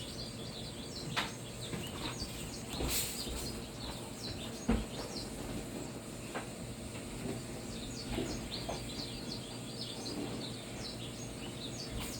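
Red siskins chirping: many short, high twitters throughout, with a few sharp knocks from handling in the cage.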